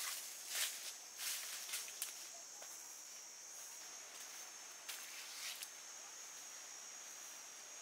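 Steady high-pitched insect drone, like crickets or cicadas, with a few short brushing or rustling sounds of movement in the first two seconds and again about five seconds in.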